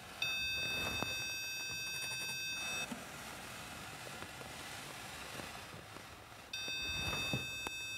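Electronic stud finder sounding a steady high beep as it is slid over a stud behind the drywall, signalling that a stud has been found. The beep holds for about two and a half seconds, stops, and comes on again near the end.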